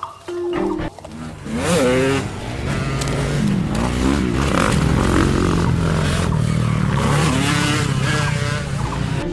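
A vehicle engine revving, its pitch rising and falling again and again over a steady low rumble, starting about a second and a half in.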